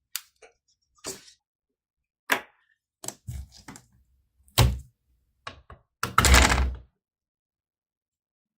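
Irregular knocks and clicks of a laptop being handled while it is taken apart, about a dozen in all, with a longer, louder clatter about six seconds in.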